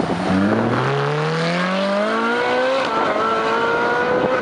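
Ferrari 458 Speciale's naturally aspirated 4.5-litre V8 accelerating hard away. Its pitch climbs steadily, drops sharply at an upshift about three seconds in, then climbs again.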